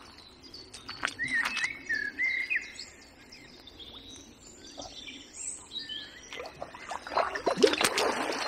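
Small birds singing in short chirps and twittering phrases, with a louder noisy burst of sharp knocks and rustle about a second before the end.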